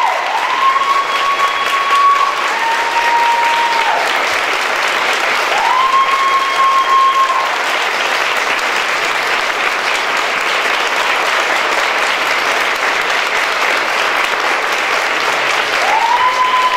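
Crowd applauding steadily, with a long shrill held tone rising in and sounding over the clapping about four times.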